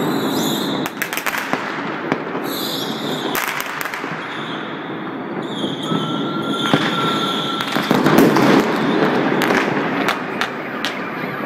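Mass New Year fireworks going off all over a city: a constant crackle and rumble of bursts with sharp bangs scattered throughout. Whistles rise over it several times, the longest about five to eight seconds in.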